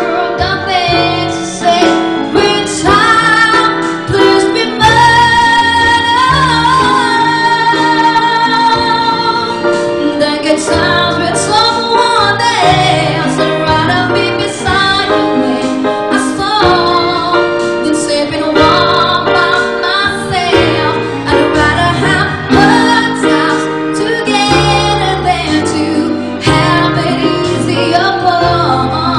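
A woman singing live into a microphone, accompanied by an electronic keyboard.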